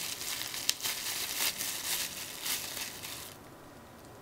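Packaging crinkling and rustling as it is handled by hand, a run of short rustles with a few sharper crackles that stops a little after three seconds.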